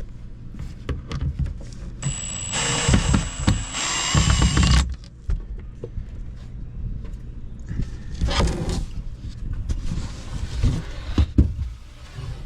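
Cordless drill-driver backing out panel screws: its motor whines steadily for about three seconds starting two seconds in, then runs again briefly near the middle, with clicks and knocks of the panel being handled between.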